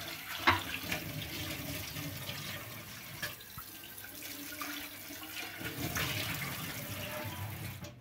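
Kitchen tap water running and splashing onto a frying pan in a sink as a rubber-gloved hand rinses it, with a sharp knock about half a second in and a lighter one a few seconds later. The water stops just before the end.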